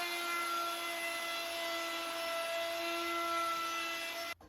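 Electric wood router running, a steady whine over a hiss as it routes the edge of a wooden side panel, cutting off suddenly near the end.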